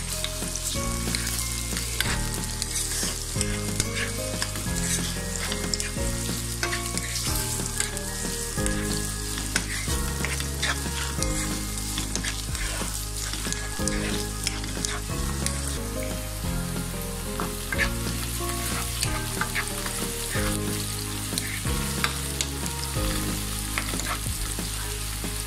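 Sliced onions frying in hot mustard oil in a non-stick wok: a steady sizzle, with frequent clicks and scrapes of a wooden spatula on the pan as they are stirred.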